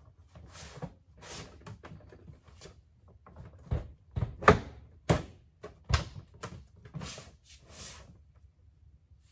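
White plastic storage drawers sliding open and shut, a string of scraping rattles and sharp plastic knocks, the loudest in the middle.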